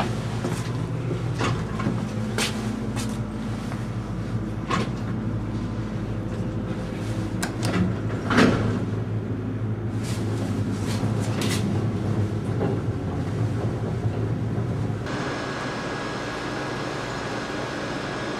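Elevator car running, with a steady low hum and scattered knocks and rattles. About fifteen seconds in it changes abruptly to a steadier hiss with a faint high whine.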